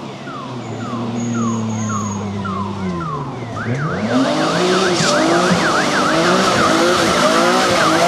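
BMW E36 3 Series Compact rally car's engine under load on a gravel stage. The engine note drops about three seconds in as the throttle comes off, then rises and falls quickly, several times a second, as the car slides through the bend. Gravel and tyre hiss build as it comes closer and louder.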